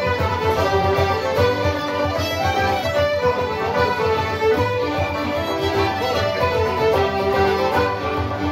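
Live Irish traditional music, with a fiddle playing a tune.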